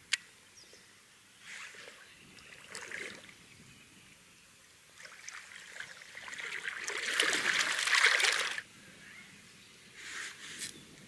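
Lake water splashing and sloshing, with small splashes early on that build to a louder bout a few seconds in, which stops suddenly. There is a sharp click right at the start.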